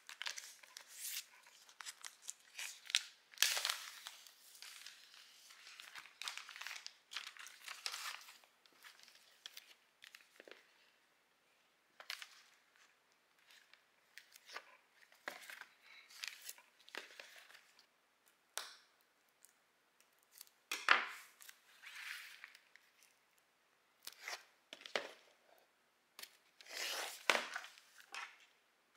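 Plastic shrink-wrap on a vinyl LP sleeve crinkling and crackling in irregular bursts as the record is handled and turned over. There are louder crackles about a third of the way in, past the middle and near the end.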